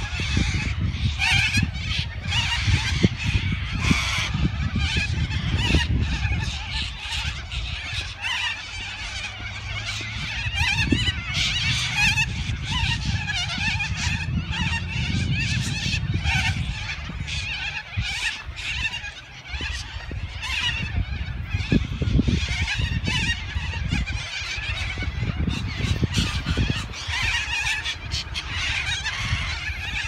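A large flock of white cockatoos (corellas) calling together, a dense, continuous chorus of harsh screeches, with wind rumbling on the microphone.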